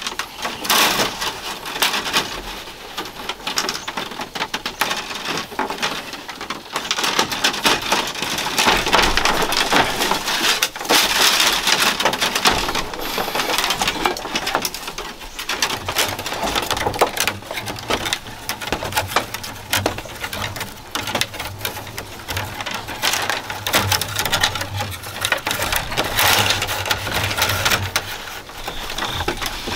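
Thin split-bamboo strips rustling, clicking and scraping against each other and on a bamboo slat floor as they are woven by hand into a basket base: many quick, irregular clicks and crackles.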